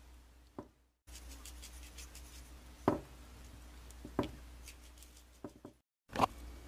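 Hands handling a skinned squirrel and chopped vegetables in a glass baking dish: about five light knocks and taps over a faint steady hum, with the sound dropping out briefly twice.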